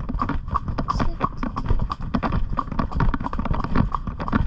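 A ridden pony's hooves striking the ground in a steady, even rhythm of hoofbeats.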